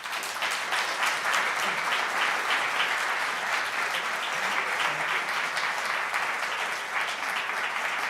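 Audience applause: many people clapping together, breaking out at once and keeping up steadily.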